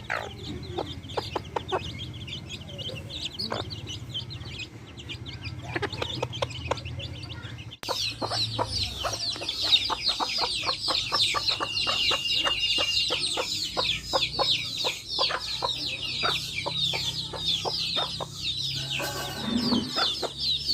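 Backyard hens clucking among a brood of chicks peeping in short high, falling chirps. About eight seconds in, an abrupt cut gives way to a louder, busier stretch of constant peeping with clucking.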